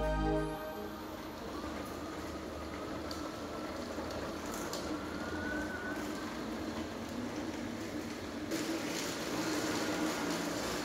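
3D-printed electric tank-tread skateboard running across a concrete floor with a rider aboard: a steady rattling rumble from the treads, with a faint whine from the brushless motor rising in pitch. It gets louder in the last couple of seconds. The credits music ends about half a second in.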